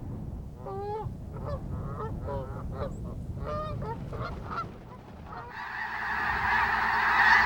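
Canada geese honking: a series of separate two-part honks. About five and a half seconds in, a dense chorus of many geese calling at once sets in and grows louder.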